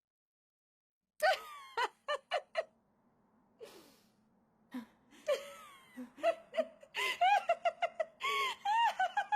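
Annie Leonhart's laugh in the Italian dub of Attack on Titan: a woman's voice giving a few sharp bursts of laughter about a second in, a breathy intake, then a fast, rhythmic laugh that builds and grows louder toward the end.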